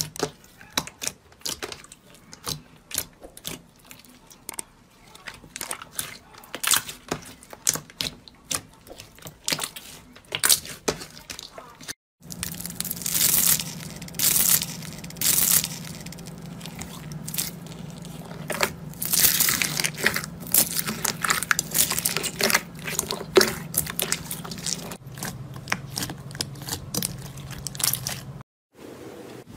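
Crunchy slime being squeezed and worked, giving a quick run of sharp crackles and pops. The clip changes about twelve seconds in, and the second clip is louder, with a steady low hum under the crackling.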